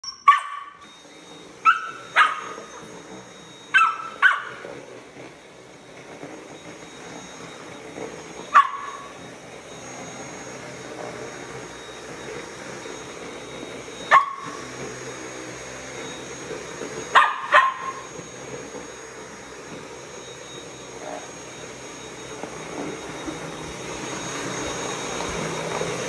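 Samoyed puppy barking at a running Dyson cordless stick vacuum: sharp single barks, several in the first few seconds and then a few more spaced out, over the vacuum motor's steady whine.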